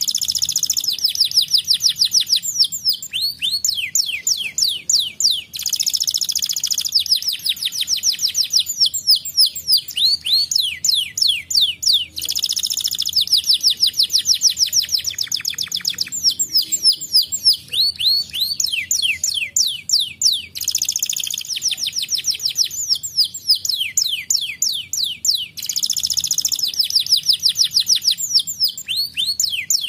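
Domestic canary singing a long song of fast trills: runs of quickly repeated sweeping whistled notes, broken every few seconds by denser, louder rolls.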